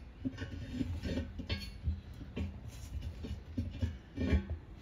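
Irregular metal clinks and knocks as the two halves of a split-rim military truck wheel are fitted together over the wheel studs.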